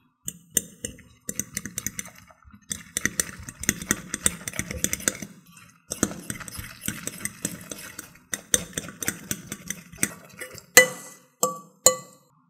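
A metal spoon stirring and scraping a thick, wet batter in a glass bowl, in quick uneven runs of clicks and scrapes. Near the end the spoon strikes the glass three times, each a short ringing clink.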